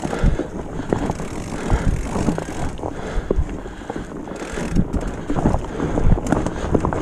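Mountain bike riding over a leaf-covered dirt trail: the tyres rolling over leaves, roots and rocks, with the bike rattling and knocking irregularly over bumps, and wind noise on the microphone.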